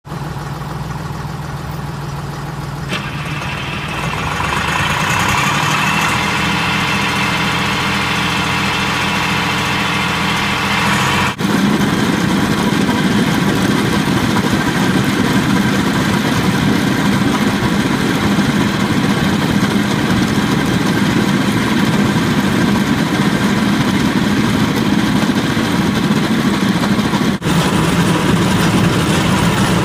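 Industrial concrete milling machine running: steady engine hum at first, with a higher whine joining about three seconds in. After a cut it becomes the louder, rougher grinding of the cutting drum milling hard concrete.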